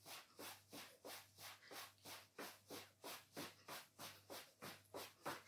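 A woman's quick, rhythmic breathing during a warm-up exercise: faint puffs of breath, about three a second, over a low steady hum.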